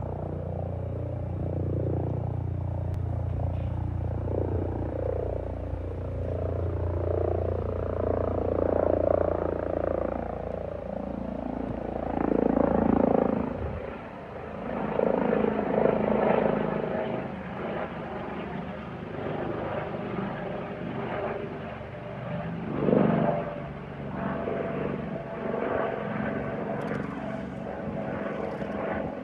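Airbus H145 twin-engine helicopter flying over, a continuous rotor and turbine sound that swells and fades several times.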